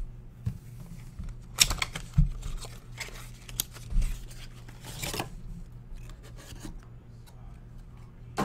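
Trading card pack being opened and its football cards handled: wrapper tearing and crinkling, and cards sliding and snapping against each other, in a handful of short rustles and snaps.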